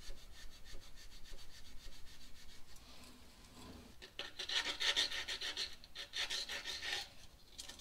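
Rapid back-and-forth hand scrubbing on the engine block's rear main seal mounting surface, cleaning it for fresh RTV. The strokes are lighter at first, get louder about four seconds in, and stop briefly near the end.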